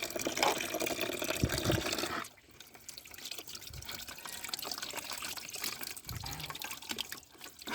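Pumped water running and splashing as muddy toy vehicles are rinsed by hand. The flow is louder for about the first two seconds, then drops off sharply to quieter dribbling and splashing.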